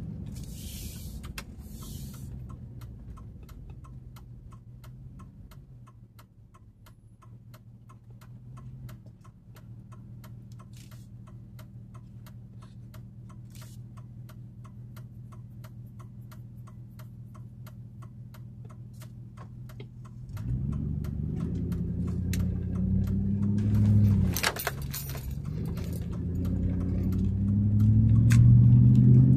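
Turn-signal flasher clicking at an even pace over the low idle of a 2004 Chevy Avalanche Z71's V8, heard from inside the cab while stopped. About twenty seconds in the truck pulls away and the engine revs up, drops briefly at a gear change near twenty-four seconds, then climbs again.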